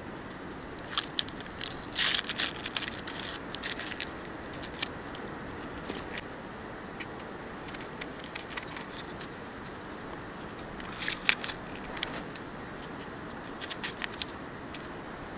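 A knife cutting raw vegetables (onion, cucumber, green bell pepper) against a small wooden board: crisp crunching cuts in two spells, one soon after the start and one about three quarters of the way through, over a steady low hiss.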